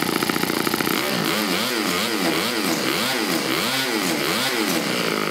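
Bored-out OS FS-40s single-cylinder four-stroke model engine running on a dyno. About a second in, its speed starts swinging up and down again and again, rising and falling in pitch less than a second apart, and it settles to a steady note near the end.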